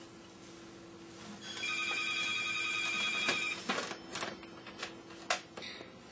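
A steady electronic ringing tone, like a telephone ring, lasting about two seconds, followed by a few short knocks. A faint steady hum runs underneath.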